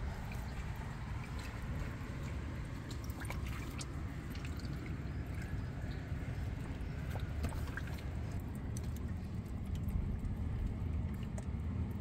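Seawater sloshing and lapping among shoreline rocks, with scattered small drips and splashes over a steady low rumble.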